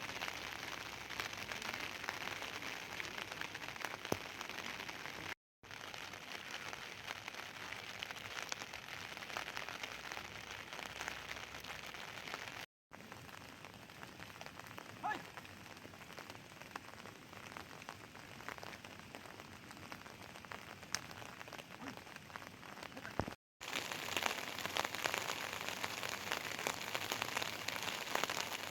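Heavy rain falling, a dense patter of drops on surfaces. It cuts out briefly three times where separate recordings are joined.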